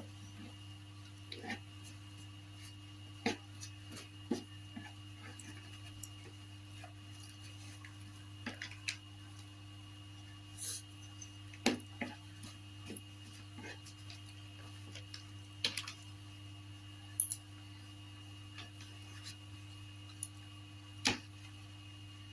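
A person eating: scattered wet mouth smacks and small clicks of chewing and picking up food, about a dozen spread irregularly, over a steady low electrical hum.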